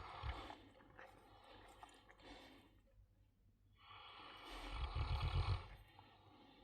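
A large dog snoring: a short snore breath at the start and one longer, louder, rasping snore from about four seconds in, lasting roughly two seconds with a low rattle.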